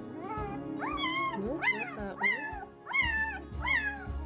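Newborn German Shepherd puppy crying: a string of short, high, squeaky cries, each rising then falling, about two a second.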